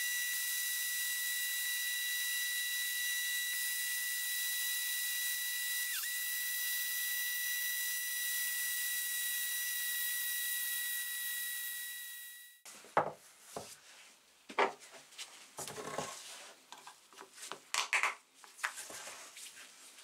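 Cordless drill spinning a wooden handle while sandpaper is held against it: a steady high motor whine over the hiss of the abrasive. It stops suddenly about two-thirds of the way through, followed by scattered knocks and rustles of handling.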